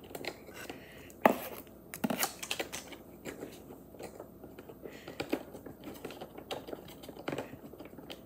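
Wooden craft-kit pieces being handled and pushed into place: scattered light clicks and knocks with some rubbing, the sharpest knock about a second in.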